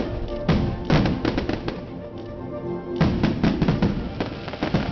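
Aerial fireworks going off in sharp bangs and crackles over music, with a dense run of rapid crackling bangs from about three seconds in.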